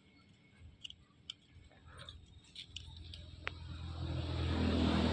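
A motor vehicle's engine hum swelling steadily louder toward the end, with scattered small clicks earlier on.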